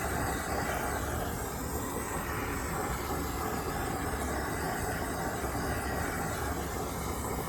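Handheld heat gun running steadily, its fan blowing a hot-air hiss over freshly poured resin to pop the surface bubbles.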